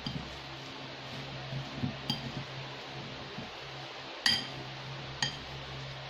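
Metal fork stirring and mashing a thick tuna-and-cracker mixture in a ceramic bowl, with soft scrapes and three sharp clinks against the bowl at about two, four and five seconds in. A steady low hum runs underneath.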